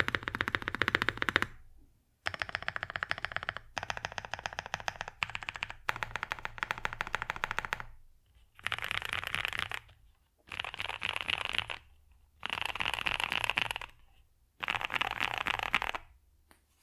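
Fast typing on a Mode 80 mechanical keyboard with lubed Boba Linear Thock switches on a POM plate and Domikey Dolch keycaps: a dense run of keystrokes with a deep, thocky sound. It comes in bursts of a second or two, with short pauses between them.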